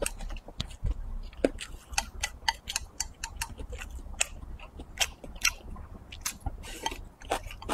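Close-up eating sounds of a person chewing a mouthful of rice and braised pork: a rapid, irregular series of short wet mouth and lip-smacking clicks.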